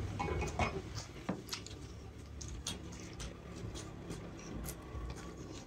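Close-up eating sounds: a person chewing a mouthful of rice and pork and picking up more rice with the fingers from a metal plate, giving a string of small, irregular wet clicks and squishes.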